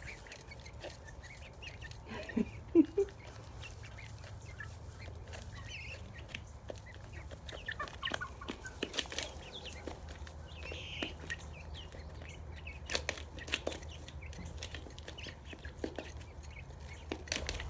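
Young chickens and turkey poults calling softly now and then, with scattered light clicks, over a steady low hum.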